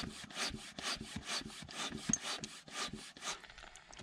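A utensil scraping and stirring food in a frying pan on a portable gas stove, in quick back-and-forth strokes of about four a second that stop shortly before the end.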